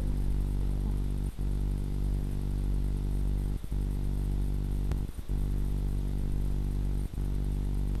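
Steady low hum made of several evenly spaced tones, cut by four brief dropouts.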